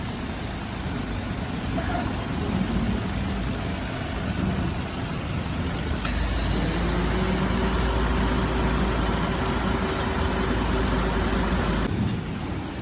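Daihatsu Esse's three-cylinder engine idling. About halfway through, the air conditioner cuts in, adding a loud rasping, buzzing noise and a steady hum on top of the idle, then cuts out abruptly about a second before the end. This is the abnormal 'jiri-jiri' air-conditioner noise.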